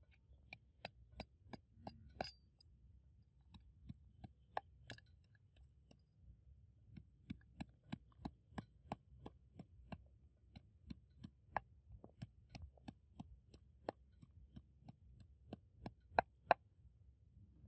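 Wooden pestle pounding in a clay mortar: short knocks at about two to three a second, pausing briefly twice, with the two loudest strikes near the end.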